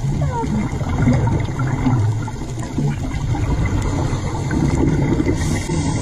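Underwater rumble and bubbling picked up by a dive camera, with a hiss of a scuba diver's exhaled bubbles near the end.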